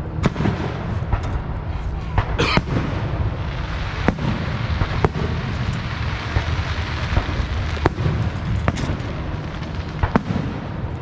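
Fireworks display: irregular sharp bangs about every second or so, with one longer crackling burst a couple of seconds in, over a steady low rumble.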